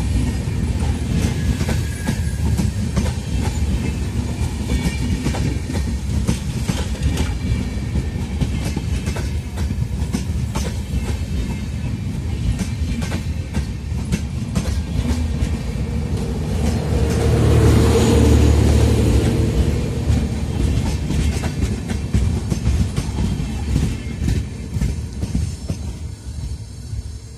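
Passenger coaches of an express train running past close at speed, the wheels clattering and clicking over the rail joints. About 17 seconds in, the generator car passes, adding a louder steady hum from its diesel generator sets. The sound then fades away as the end of the train goes by.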